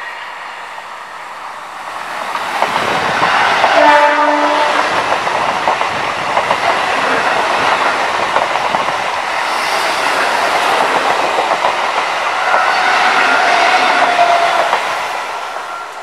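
Mumbai suburban electric multiple-unit local trains passing at speed close by, with steel wheels clattering over the rail joints. A short multi-tone train horn blast sounds about four seconds in.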